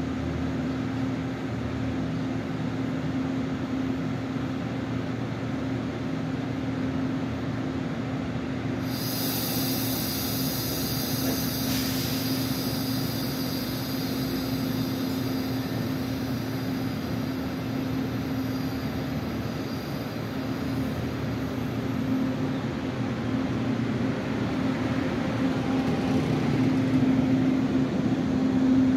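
Chu-Kuang express passenger train standing at a platform with a steady electrical hum. About nine seconds in a sharp high hiss starts suddenly, with a click a few seconds later, and fades away over several seconds. Near the end the train begins to pull away and its rumble grows louder.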